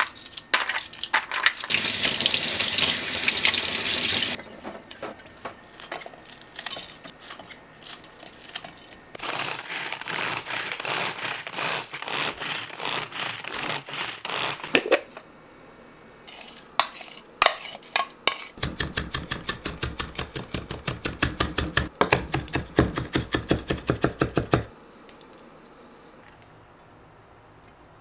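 Kitchen prep sounds: a tap runs briefly at the sink while vegetables are rinsed in a plastic container, with clattering. Later a hand-pressed manual food chopper is worked in a long run of rapid, even strokes, chopping vegetables in its plastic jar.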